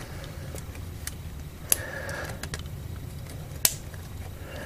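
Scattered sharp clicks and taps as hands work a plastic quick-connector clip and the transmission cooler line fittings under a Jeep Wrangler JK, over a steady low hum. The two loudest clicks come about two seconds apart.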